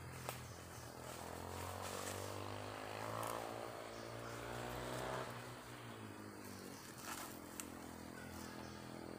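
A small engine running in the distance. Its pitch climbs for about four seconds, then drops about five seconds in and holds steady at a lower note.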